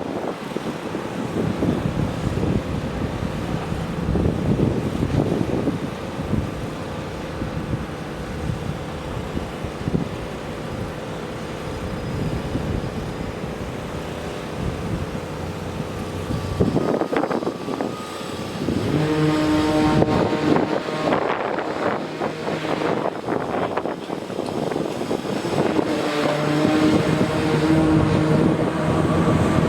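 Motor vehicle noise: a rough rumble, then about two-thirds of the way through a steady engine drone with a clear pitch sets in and keeps going.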